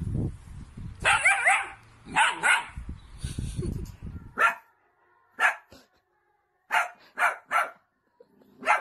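A dog barking: a few wavering, whiny calls over a low rushing noise in the first half, then about six short, sharp barks at uneven spacing.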